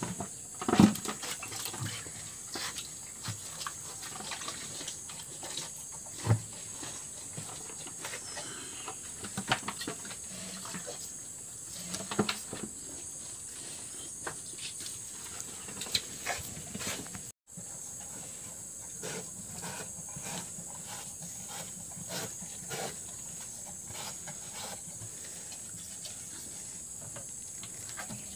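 Cattle drinking from plastic buckets: irregular slurps, sucks and splashes of water, with the buckets knocked now and then, the loudest about a second in and again about six seconds in, over a steady high hiss.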